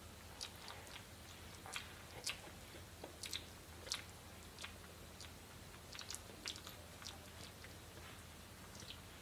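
Bernese mountain dog puppy mouthing and nibbling at a littermate: faint, irregular wet clicks and smacks of its mouth and teeth.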